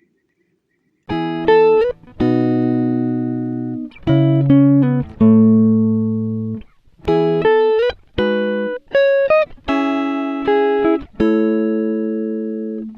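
Background music: a guitar playing a slow run of plucked chords and single notes, each left to ring out, starting about a second in.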